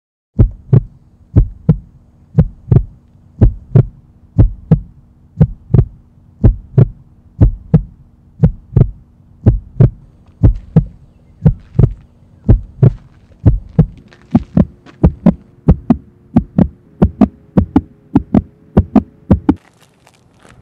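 Heartbeat sound effect: low double thumps, lub-dub, about once a second over a steady hum that gains higher tones partway through. The beating stops about a second before the end.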